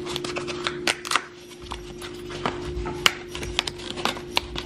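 Kitchen handling noises at a countertop: scattered clicks, taps and light rustles, irregular and close, over a steady faint hum.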